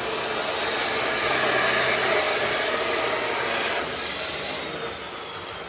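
Wire-feed welding arc sizzling and crackling steadily as a bead is run, stopping a little before the end.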